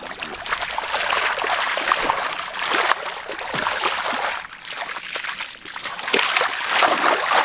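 Hands and arms scooping and shoving through thick wet mud, making continuous wet squelching and sloshing with small splashes. It eases briefly about halfway.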